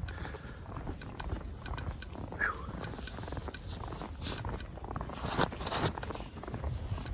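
Wind rumbling on the microphone in a blizzard, with rustling, scraping and clicking of winter clothing and handling noise, and a brief squeak about two and a half seconds in.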